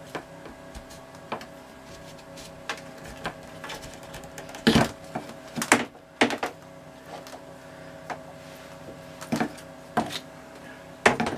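Clear plastic hose being handled and cut through by hand, without a proper hose cutter: scattered small clicks and rustles, with a few louder sharp cutting sounds around the middle and again near the end.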